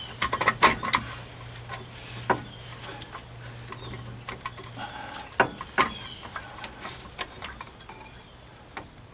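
Scattered metallic clicks and knocks of a C-clamp being worked on a 2002 Nissan Frontier's front brake caliper, pushing the caliper pistons back in. There is a quick cluster of clicks in the first second and a few single knocks later, over a low steady hum that fades about halfway.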